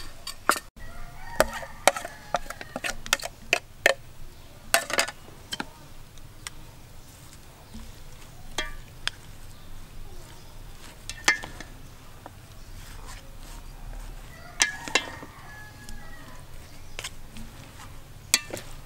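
Utensils knocking and clinking against a stainless steel mixing bowl as a squid salad is tossed: irregular sharp clinks, some with a short metallic ring, a few to several seconds apart.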